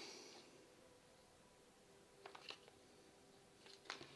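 Near silence, with a few faint, short clicks about two seconds in and again near the end.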